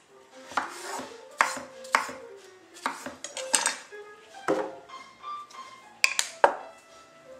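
Kitchen knife cutting peeled zucchini on a cutting board: a series of irregular sharp knocks of the blade against the board. Near the end comes a last quick pair of knocks as the knife is laid down and a jar is picked up.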